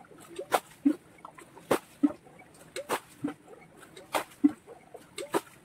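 Water being bailed out of a shallow stream pool with a metal pan to drain it for catching fish: repeated scoops and splashes, about one a second, each a sharp splash with a dull slosh after it.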